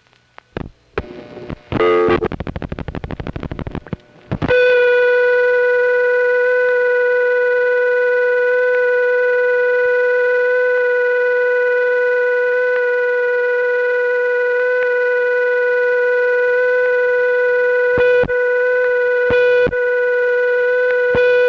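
Telephone line audio from a Crossbar 5 exchange: a few switch clicks and a quick run of pulse clicks, then, about four and a half seconds in, a steady buzzing tone with a strong low note and a ladder of overtones. This is the permanent-signal holding trunk, reached by dialing an 11-pulse digit. The tone drops out twice for a moment near the end.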